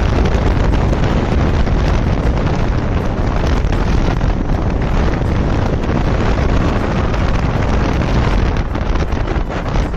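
Heavy wind buffeting the microphone of a motorcycle rider on the move, a loud, steady rush of noise that covers any engine sound.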